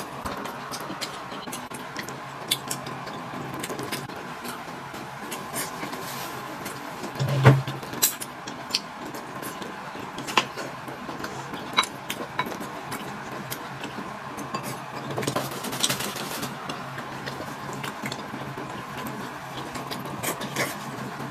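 Scattered clinks and taps of dishes and utensils, with one louder knock about seven seconds in, over a faint steady hum.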